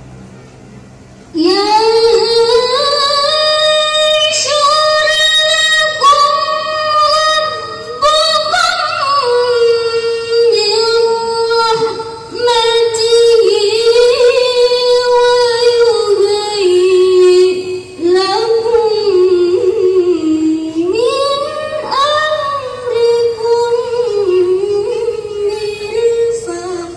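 A teenage girl's melodic Qur'an recitation (tilawah), one voice carried over loudspeakers. It starts about a second in and holds long, ornamented phrases, with brief pauses for breath between them.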